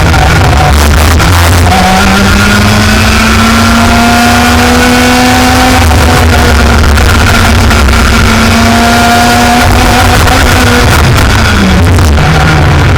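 Racing kart engine heard onboard, held at high revs with its pitch climbing slowly along a straight, then dropping sharply near the end as the throttle comes off. A heavy, distorted rumble of wind and vibration on the microphone lies underneath.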